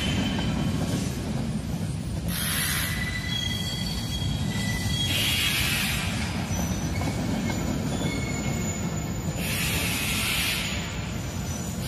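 Angle grinders cutting into metal in three bursts of about a second each, a harsh hissing grind with faint high squeals, over a steady low rumble.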